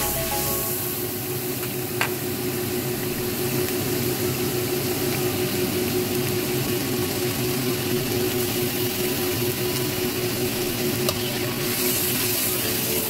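Minced aromatic paste sizzling steadily in hot oil in a wok while a metal spatula stirs it, with two sharp knocks of the spatula against the pan.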